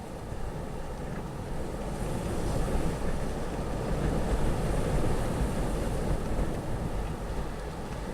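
Storm-force wind blowing in gusts, with a low rumble of wind buffeting the microphone; a gust builds about two seconds in and eases off near the end.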